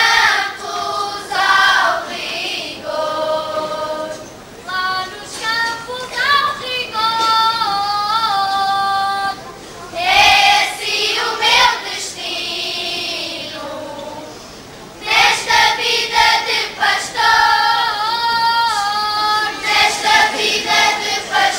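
Children's choir singing cante alentejano unaccompanied, in long held phrases, with a short break partway through before the voices come back in together.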